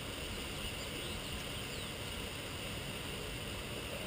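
Steady rushing of a shallow trout creek flowing over rocks.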